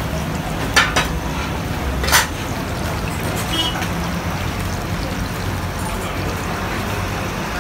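Fish pakoras deep-frying in a kadhai of hot oil: a steady sizzle, broken by three sharp knocks, two close together about a second in and one about two seconds in.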